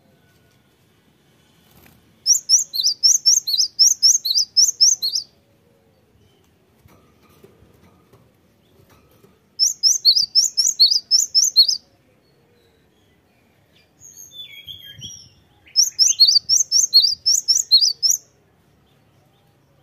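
Cinereous tit singing: three bursts of quick, high, repeated notes, each burst two to three seconds long at about four notes a second. A softer, lower call comes just before the third burst.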